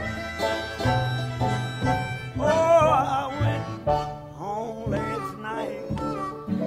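Country blues band recording: guitar, piano and bass playing together, with a wavering lead line that bends in pitch over them.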